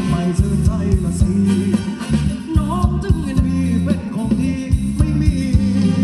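Amplified Thai ramwong dance music from a band: a singer over a heavy bass line and a steady drum beat.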